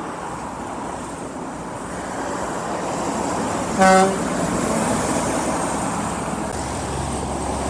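Road traffic passing, with one short blast of a truck horn about four seconds in. A low engine rumble from a heavy vehicle builds near the end.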